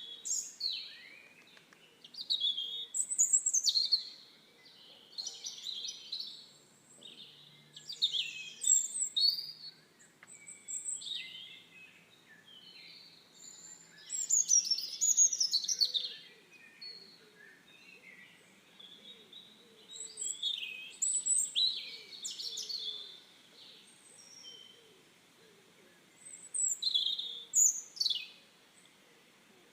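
Birds chirping and singing in short, high-pitched bursts of a second or two, repeated every few seconds.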